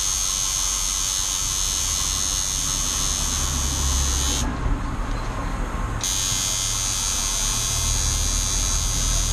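Electric tattoo machine buzzing steadily as the artist tattoos skin.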